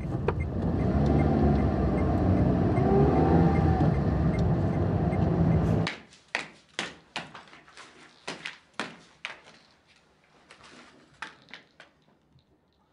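Car driving, heard from inside the cabin: a loud steady low rumble with a shifting tone over it, cut off abruptly about six seconds in. After it come a series of quiet sharp taps and clicks of footsteps and handling in a room.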